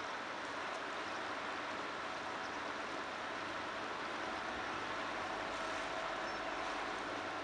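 Swollen river running high and fast, a steady even rush of flowing water.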